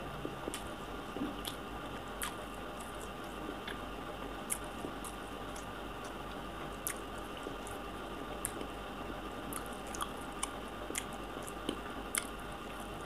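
A person chewing a soft chhena (cottage-cheese) cake, with wet mouth sounds and small sharp clicks at irregular moments over a faint steady hum.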